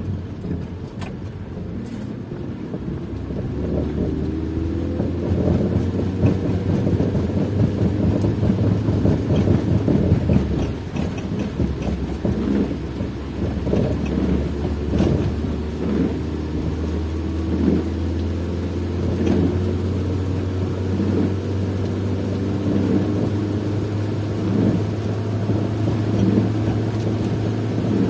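Car interior noise while driving on a wet road: a steady low drone of tyres and road, with the engine note climbing and dropping again and again as the car speeds up and slows.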